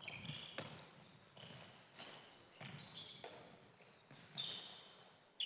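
Faint scattered thuds of a handball and players' feet on an indoor court floor, with a few short high shoe squeaks.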